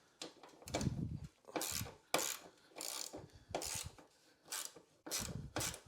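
Ratchet wrench worked back and forth on a bolt, giving a short rasping run of clicks with each swing, about every half second.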